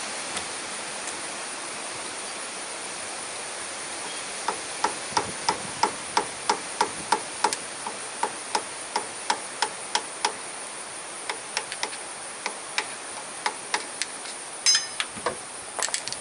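Hammer blows on a long steel drift, driving a brake S-cam bushing through the cam bracket. A run of sharp metallic taps begins about four seconds in, about three a second, then slows to scattered taps, with one louder ringing strike near the end.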